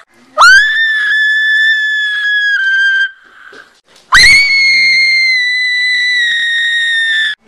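High-pitched screaming: two long held screams of about three seconds each, each shooting up in pitch at the start, with a short break between them.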